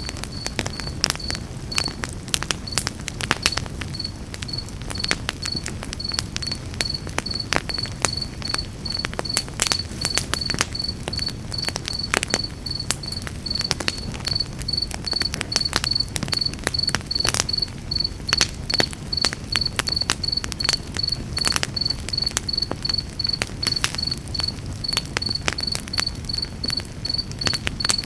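Campfire crackling and popping with frequent sharp snaps over a low steady rumble of the burning wood. A cricket chirps in a steady rhythm, about two high chirps a second.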